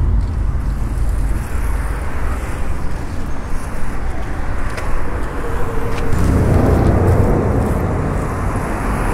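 Street traffic noise: a low, steady rumble of passing road vehicles that swells about six seconds in.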